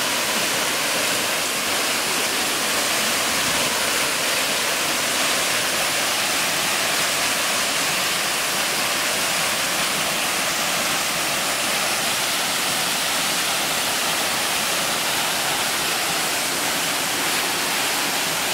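Waterfall pouring hard: a steady, even rush of falling water.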